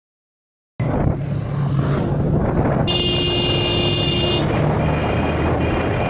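A moving motor vehicle's engine hum with wind and road noise, cutting in just under a second in. About three seconds in, a high, steady horn sounds for about a second and a half.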